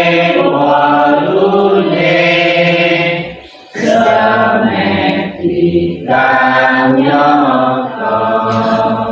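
A group of worshippers singing a Buddhist devotional song together in unison, in long held phrases with a short pause for breath about three and a half seconds in.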